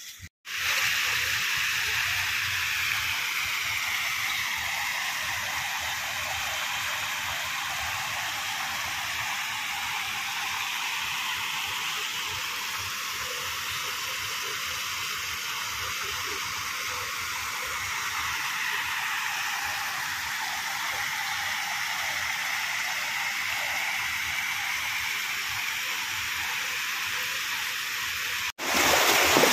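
Water rushing steadily along a village irrigation channel. It cuts out briefly near the end and comes back louder.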